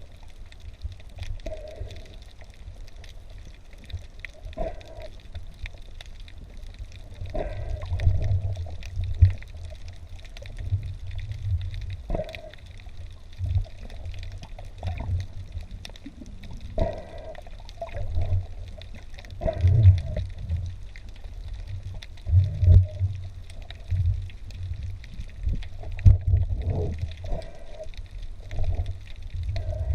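Water heard underwater during a spearfishing dive: a steady low rumble of moving water that swells irregularly, with scattered sharp clicks and knocks.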